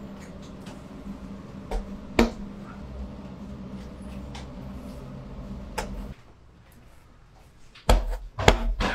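Knocks and clatters of bakery work at a tandoor oven over a steady low hum. The hum stops about six seconds in, and near the end comes a quick run of loud thumps.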